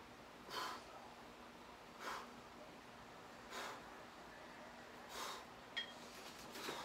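A man breathing hard through dumbbell squat-to-press reps: a sharp exhale about every second and a half, five in all. A single light metal clink of the dumbbells comes near the end.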